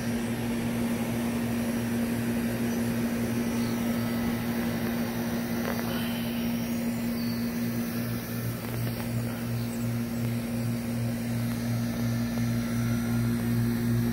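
A steady, unbroken machine hum, low and even in pitch.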